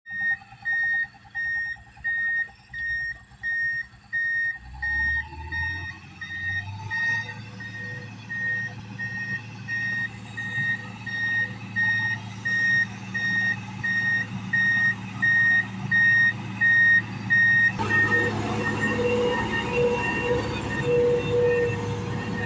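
Komatsu GD535-5 motor grader's back-up alarm beeping, about two beeps a second, over its diesel engine, which grows louder as the machine comes closer. The beeping stops about 18 seconds in, leaving the engine running loud with a steady whine.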